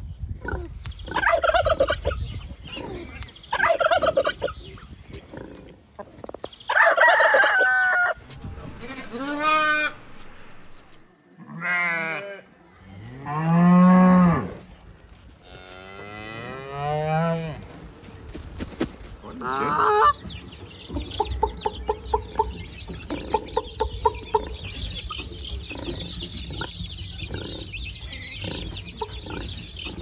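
Farm animals calling one after another: separate pitched calls, among them cattle mooing and a rooster crowing. After about twenty seconds it turns to chickens clucking in quick, rhythmic calls with chicks cheeping high over them.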